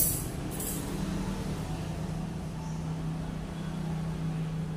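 A steady low machine hum, with one short sharp click about half a second in.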